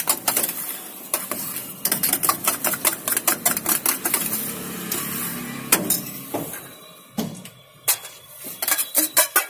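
Steel spoon clinking and scraping fast against a steel saucepan as steamed ragi puttu is stirred together with sugar, several clinks a second. The stirring stops a little past halfway, and a few scattered clinks follow near the end.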